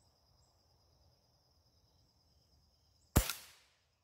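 A single shot from a B3-1 .177 spring-piston air rifle: one sharp crack about three seconds in that dies away over about half a second.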